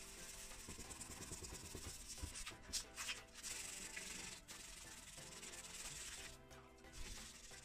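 Wet-sanding a plastic motocross side panel by hand with a small strip of soaked 1000-grit sandpaper: a steady scratchy rubbing that pauses briefly about three seconds in and again about six and a half seconds in.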